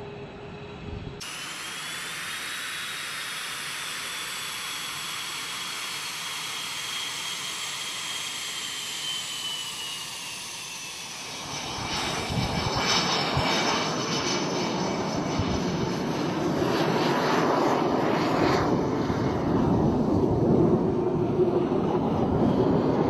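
F/A-18 jet engines: a high turbine whine that falls slowly in pitch, then about halfway through a much louder, rough roar builds and holds, as of jets at high power passing close.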